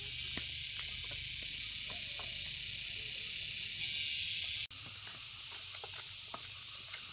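Steady high-pitched insect chorus from the trees, with a few faint light taps; it cuts out for an instant about two-thirds of the way through and carries on slightly quieter.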